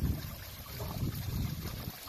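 Water running down a stone flow-form cascade of bowls and spilling into a shallow stone pool, heard as a steady splashing trickle under a low, uneven rumble that swells and eases, like wind buffeting the microphone.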